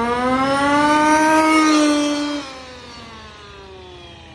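A 1/5-scale FG Formula One RC car's small petrol two-stroke engine screams at full throttle as the car speeds past. The high engine note climbs as the car approaches, then drops sharply about two and a half seconds in and falls away in pitch as the car moves off.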